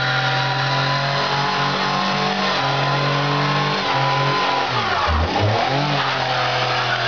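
Car engine held at high revs during a burnout, stuttering in short breaks as it bounces off the rev limiter. About five seconds in the revs drop briefly and climb straight back.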